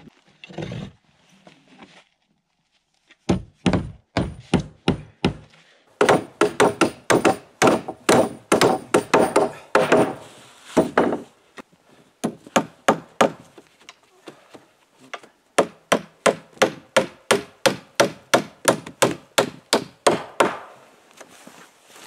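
Claw hammers nailing wooden boards onto a wooden sled frame: runs of quick, sharp blows, about three to four a second, broken by short pauses.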